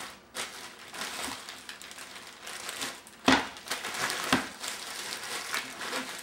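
Plastic bag crinkling as a coconut inside it is handled and shifted about, with two sharp knocks about a second apart a little past halfway.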